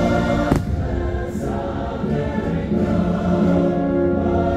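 Fireworks show soundtrack: a choir singing long held chords over orchestral music, with a single firework bang about half a second in.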